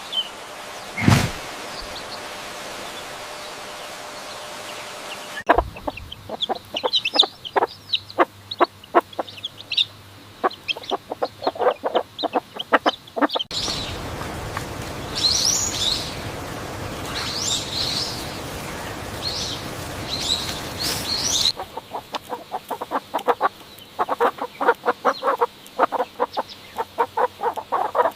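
Farmyard fowl clucking in quick runs of short calls, broken by a stretch of higher bird chirps. The segments start and stop abruptly, as in edited clips, and a hissy stretch with a single thump comes about a second in.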